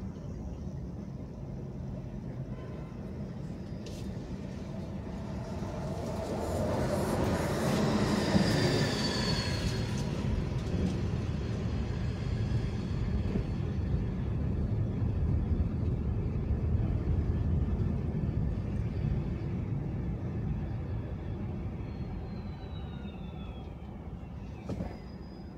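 Road and traffic noise heard from inside a moving car on city streets: a steady low rumble that swells about a quarter of the way in as a louder vehicle passes, with a brief high whine, and a high squeal sliding down in pitch near the end.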